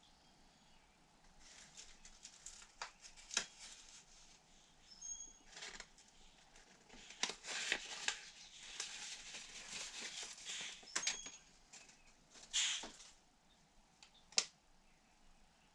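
Scattered clicks, taps and scraping from small parts being handled, with a longer stretch of rubbing or hissing noise from about seven to eleven seconds in. A bird chirps faintly a couple of times.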